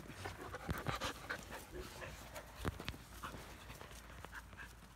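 Australian Shepherd puppies, five weeks old, panting close by in short, irregular breaths, with a single sharp click a little over halfway through.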